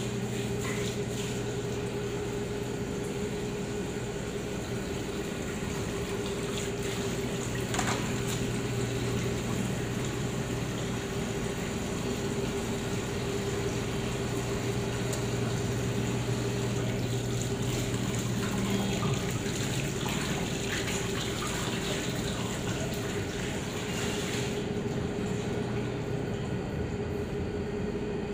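Tap water running into a stainless steel sink during handwashing, a steady splashing that stops near the end when the tap is turned off. A steady low hum sits underneath.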